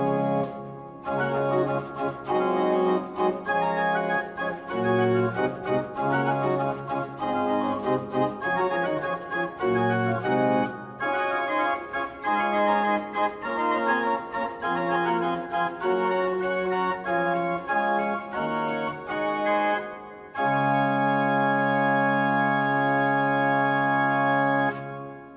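Pipe organ played by hand: a slow piece of changing sustained chords, ending in one long held chord that is released near the end and dies away in the church's reverberation.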